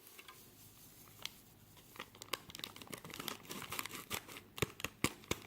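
Small candy-kit powder packet crinkling and crackling in the hands as it is emptied into the tray, quiet at first and then a quick run of sharp crinkles from about two seconds in.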